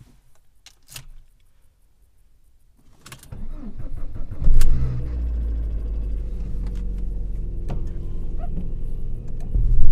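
A click, then a Lada Priora's engine starting about three to four and a half seconds in and running with a steady low rumble, which grows louder near the end.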